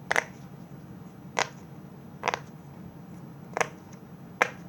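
Bubbles on a large silicone pop-it fidget toy being pressed, giving five separate short pops roughly a second apart.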